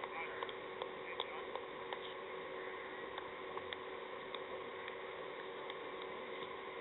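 Quiet outdoor ambience: a faint steady hum with scattered small clicks and ticks.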